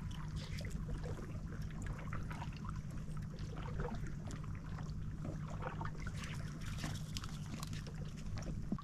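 Water lapping and trickling against a small fishing boat, with scattered small splashes and ticks over a steady low hum.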